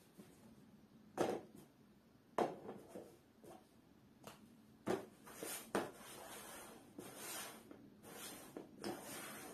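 Small cups knocked down and slid around on a board for a shell game: a few sharp knocks, then stretches of scraping as the cups are shuffled.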